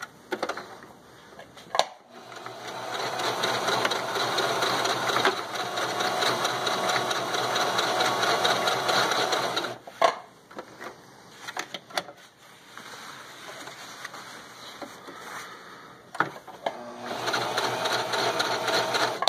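Singer Talent sewing machine stitching fabric: it runs steadily for about seven seconds, goes quieter for several seconds, then runs again near the end, with sharp clicks between the runs.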